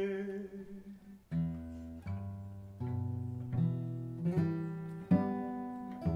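A man's voice holds a last sung note that fades out within the first second. Then two acoustic guitars and a cello play a slow instrumental passage, a new chord or note coming about every three-quarters of a second over sustained low notes.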